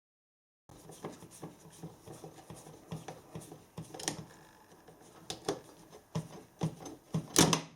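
Irregular clicks and knocks of things being handled and set down, louder near the end.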